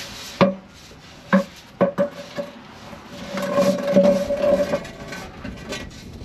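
Steel drive shaft clanking as it is set down on the ground: several sharp metal knocks in the first two seconds, then a longer scraping ring from about three seconds in.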